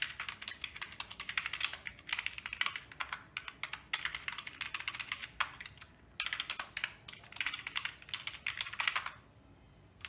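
Rapid typing on a DIRDAO RGB gaming keyboard: fast, continuous key clicks in two runs with a short pause a little past the middle.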